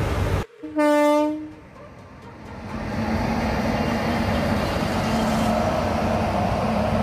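Indian Railways WAP-5 electric locomotive sounding its horn in one short blast, then the rumble of the locomotive running past builds and holds steady with a low hum.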